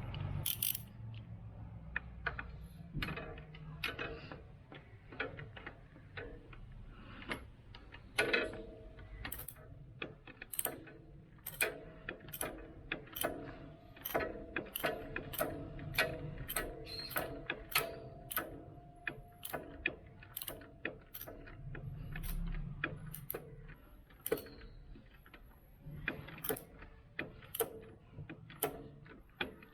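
Ratchet wrench with a 13 mm socket clicking in short runs of back-strokes as a bolt is tightened: the silencer-to-clamp bolt on a motorcycle exhaust being snugged down.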